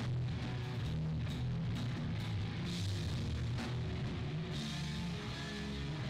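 Hardcore punk band playing live: distorted electric guitar and bass chugging over a drum kit, with repeated cymbal and drum hits.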